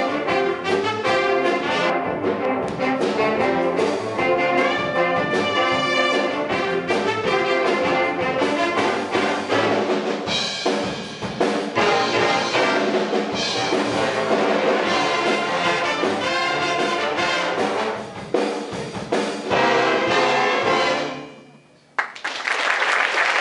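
School big band of saxophones, trumpets, trombones, electric guitars and drums playing a swing number, ending on a final held chord that dies away about 21 seconds in. After a brief pause, audience applause starts near the end.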